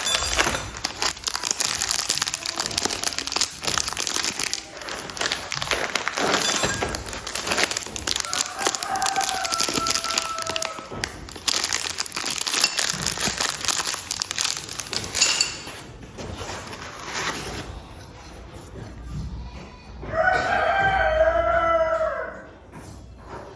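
A rooster crowing, one call of about two seconds near the end with a shorter call about nine seconds in. For the first two-thirds a dense, rasping clatter of work noise runs underneath, full of clicks and knocks.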